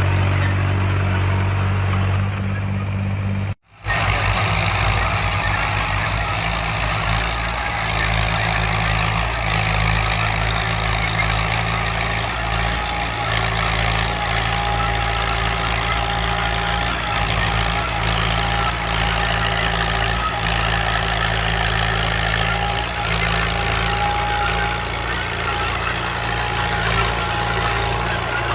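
Classic Fiat tractor's diesel engine running steadily while ploughing. The sound cuts out for a moment about three and a half seconds in, then the engine carries on.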